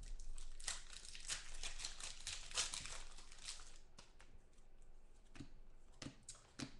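Plastic wrapper of a football trading-card pack being torn open and crinkled, followed by a few soft clicks near the end as the cards are handled.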